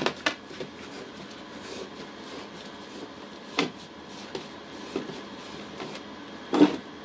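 Metal parts of a Milwaukee impact wrench clinking and knocking as it is taken apart by hand: a few separate sharp clicks, the loudest near the end, over a faint steady background.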